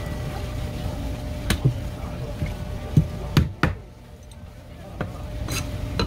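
Fish offcuts and a knife being handled on a plastic cutting board: a handful of separate knocks and taps, over a steady low hum.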